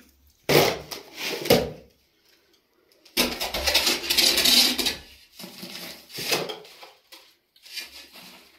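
Kitchen work sounds: a few sharp knocks and clatters of cookware, and about three seconds in a longer noisy stretch lasting nearly two seconds.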